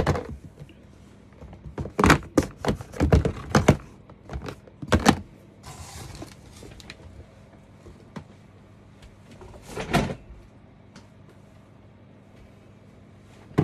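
Hard plastic Xhorse adapter storage cases knocking and clattering against each other as they are handled and shifted in a cardboard box, in a few short bouts, with a brief scraping rustle about six seconds in.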